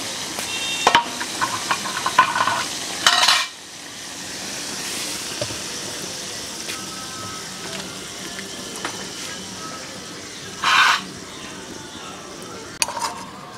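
Potato and pointed gourd curry simmering with a steady sizzle in a karai. In the first few seconds there are metal clinks and scrapes against the pan, and near the end a short scrape and a few more clinks.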